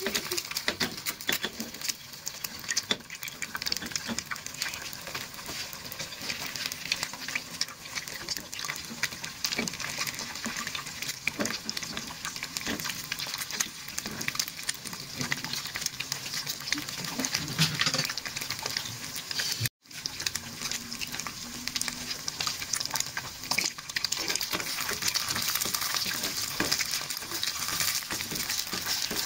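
An egg frying in hot oil in a non-stick frying pan: a steady sizzle full of fine crackles and spits. The sizzle cuts out for an instant about two-thirds of the way through, then carries on.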